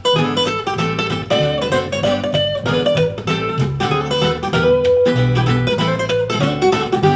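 Instrumental music led by a plucked guitar over a bass line, played through Genelec M030 studio monitors and a 7040A subwoofer and picked up by a stereo microphone in a small room.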